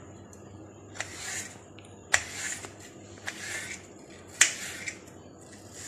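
Kitchen knife slicing a red apple into thin julienne strips on a plate: four crisp cutting strokes about a second apart, two of them starting with a sharp click.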